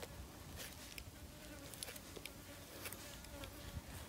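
Flies buzzing faintly and steadily, with a few light clicks.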